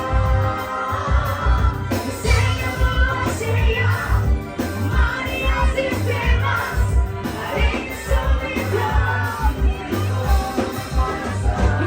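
Live forró band playing over loudspeakers, with a steady pounding bass beat and a singing voice over the band.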